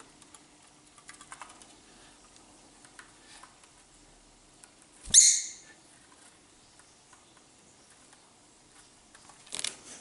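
Lovebird giving one loud, sharp chirp about halfway through, over light tapping of its feet and beak and a grape on a countertop. A brief knock comes near the end.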